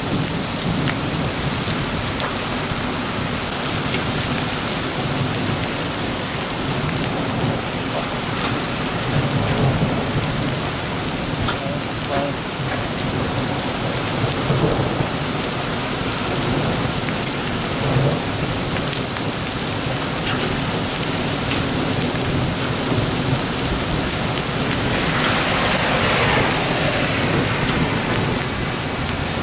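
Heavy rain pouring down onto an asphalt road and grass, a dense, steady hiss of rain on the surface.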